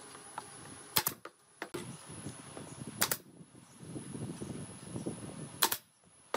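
Pneumatic nail gun firing three sharp shots, about two seconds apart, as nails are driven into pine boards, with low handling noise between shots.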